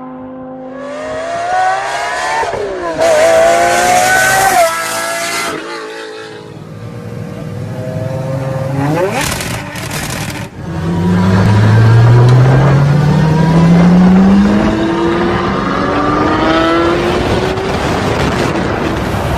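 Lamborghini engine: a steady idle, then revved hard, the pitch swinging up and down, and later accelerating with the pitch climbing in long rises that each fall back before the next.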